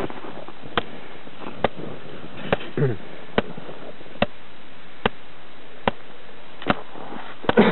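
Shovel blade tapped down on top of an isolated snow column in an avalanche stability (column) test: nine sharp, evenly spaced taps, a little under one a second. The column does not fracture under this series of taps.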